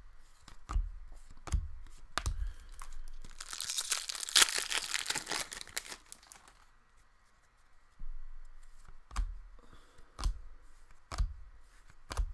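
A foil trading-card pack wrapper torn open and crinkled for a couple of seconds in the middle, the loudest sound here. Before and after it come several soft, short knocks of cards being handled.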